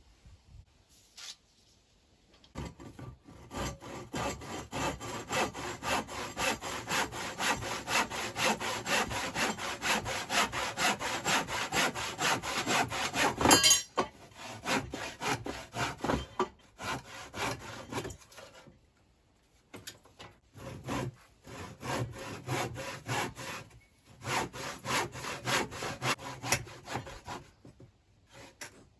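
Hand saw cutting a timber noggin, in steady back-and-forth strokes. A long run of sawing ends about halfway through, then shorter bouts of strokes follow as the cut is finished off.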